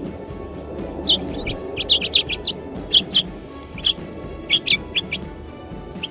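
Birds chirping: many short, high chirps in quick succession, starting about a second in, over quiet background music.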